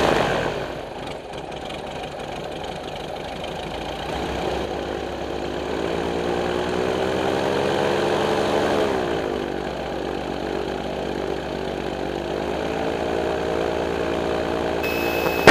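Sportcopter II gyroplane's engine running on the ground, speeding up about five seconds in and easing back to idle near the ninth second.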